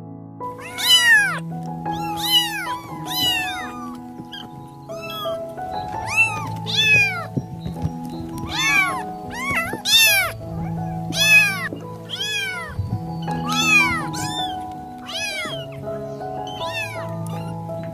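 Domestic cats meowing again and again, more than a dozen short meows that each rise and fall in pitch, over steady background music.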